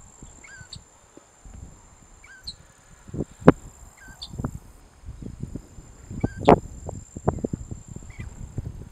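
Loggerhead shrike giving short, faint calls about every two seconds. Louder low thumps break in irregularly, the strongest about three and a half and six and a half seconds in.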